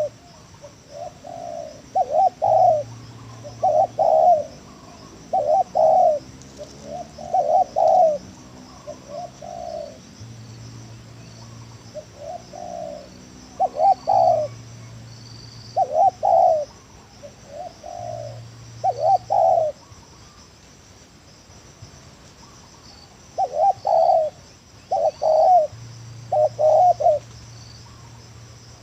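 Spotted dove cooing in repeated short phrases of two to four notes, with pauses between phrases. A faint steady chirring of insects runs behind it.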